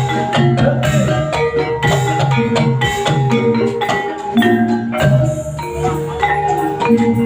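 Javanese gamelan playing the accompaniment for a kuda lumping dance: struck bronze metallophones ring out a repeating melody over a steady beat of sharp percussive strikes.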